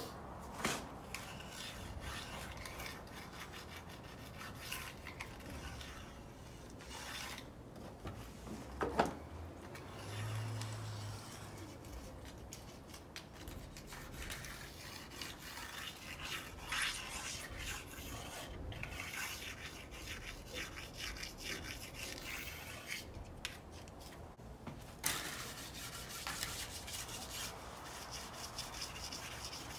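A hand tool scraping and filing along the aluminium bottom track of a sliding glass door, in irregular strokes, to smooth out the rough, worn section that makes the door drag. There is a sharp knock about nine seconds in, and the strokes grow denser and more even near the end.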